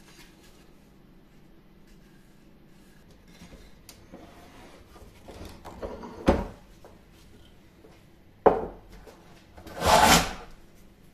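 Beech-bodied shooting plane with a steel side plate pushed along a shooting board, shaving the end grain of a wooden block. A scraping stroke swells to a peak a little past halfway, a sharp knock follows, and then a louder cutting stroke comes near the end.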